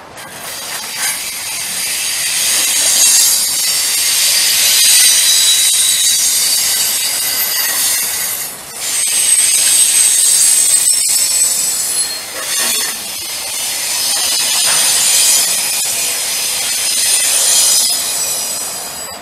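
Wheels of a passing Union Pacific intermodal freight train squealing against the rails: high-pitched squeal tones over a steady rolling rush, dipping briefly about eight and a half and twelve and a half seconds in.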